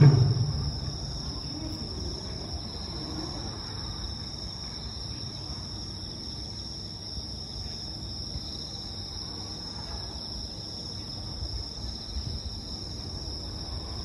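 Japanese bell crickets (suzumushi) singing, a steady high chirring, with a faint low rumble beneath. A festival taiko drum and music cut off in the first moment.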